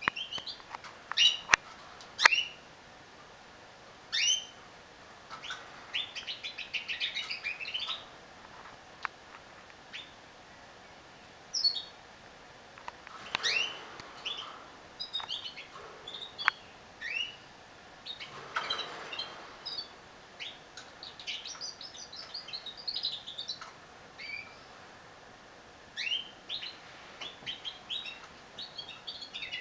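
Female canary singing in short, broken phrases: sharp falling chirps and brief runs of quick high twittering notes, with pauses between phrases.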